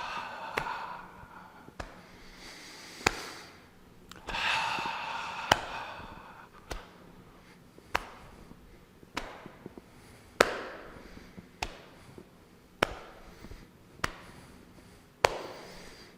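Cupped hands lightly slapping the body as the arms swing side to side, one sharp pat about every 1.2 seconds in a steady rhythm. A long breath out comes about four seconds in.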